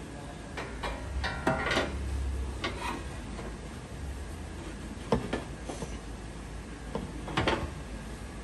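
Scattered clinks and knocks of steel bumper parts and bolts being handled and fitted to a truck frame: a cluster in the first three seconds, then two single knocks later.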